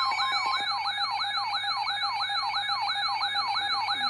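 Electronic siren alert tone: quick rising-and-falling pitch sweeps, about four a second, over a steady high tone. It heralds a tornado warning in an emergency alert broadcast.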